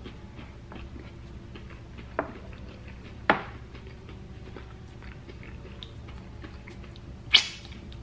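Close-miked chewing of a mouthful of tater tots, with small wet mouth ticks and three short sharp smacks about two, three and seven seconds in, over a steady low hum.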